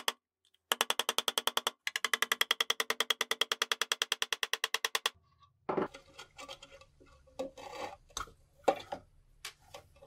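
A hammer tapping a pin punch in quick, even strokes, metal ringing on metal, driving the hinge pin out of a rusted steel lighter case. The taps stop about five seconds in, and scattered clunks and scrapes follow as the two halves of the case are handled and pulled apart.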